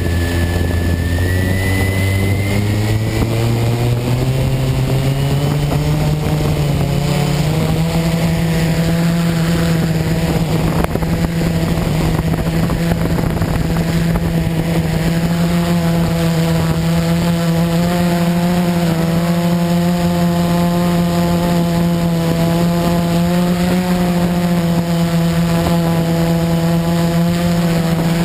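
Quadcopter electric motors and propellers, heard up close from a camera mounted on the craft. They spin up with the pitch climbing over about the first seven seconds, then run at a steady, loud hum with slight wavering in pitch.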